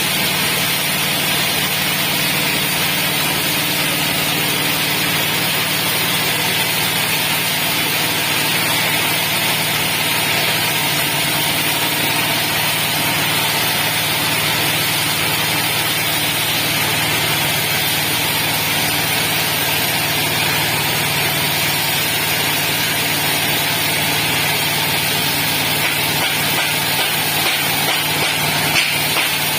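The 9-horsepower engine of a horizontal bandsaw sawmill running steadily during a test run.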